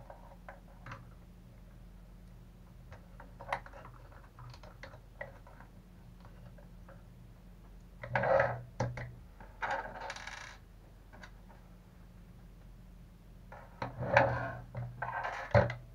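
Small metal and plastic parts of an RC truck chassis clicking and clinking as they are handled and fitted by hand, with louder bursts of rattling clatter about halfway through and again near the end.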